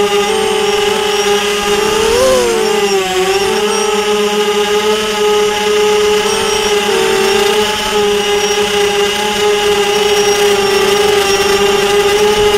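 Small radio-controlled drone's electric motors and propellers whining steadily, heard from the camera on board. The pitch jumps up then dips about two seconds in, and wavers again about halfway, as the motor speed changes during manoeuvres.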